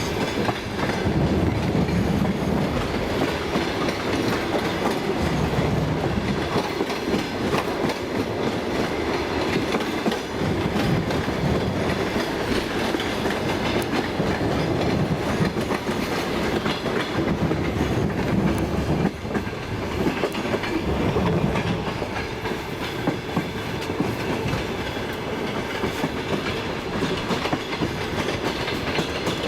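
Passenger train running along the track, with its wheels clattering over the rail joints in a steady clickety-clack, heard from inside a carriage.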